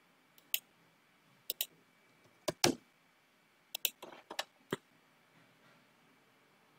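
Computer mouse clicking: about a dozen short, sharp clicks, scattered and some in quick pairs, in the first five seconds.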